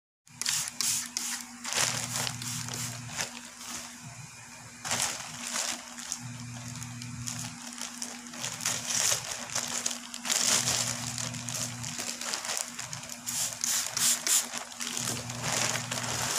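Plastic courier mailer pouch and bubble wrap crinkling and rustling in irregular bursts as they are handled and opened, over a steady low hum.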